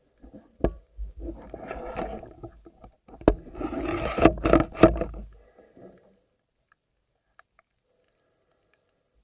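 Muffled underwater noise of a swimmer moving through the water, with a deep rumble and several sharp knocks, the loudest about three to five seconds in. It dies away about six seconds in.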